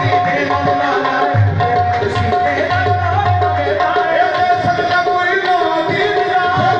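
Live qawwali music: tabla playing a steady rhythm under a sustained, note-by-note melody line.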